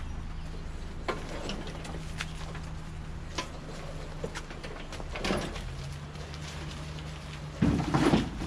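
Craftsman LT2000 lawn tractor being pushed by hand with its engine dead: tyres rolling over concrete, with footsteps and light clicks and knocks, and a louder rumbling thump near the end as it is shoved into place. A steady low hum runs underneath.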